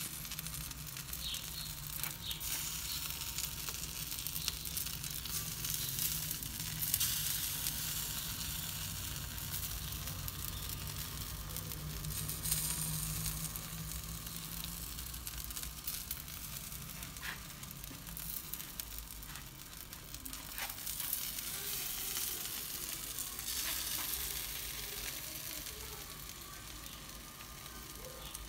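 Sausages and meat sizzling as they turn on a small rotisserie over hot charcoal and wood embers. A steady hiss runs throughout, broken by scattered crackles.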